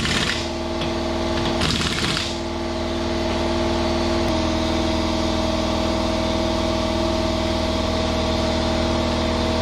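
Cordless impact wrench running the wheel's lug nuts home in two short bursts, one at the start and one about two seconds in, over a steady engine-like hum that carries on throughout.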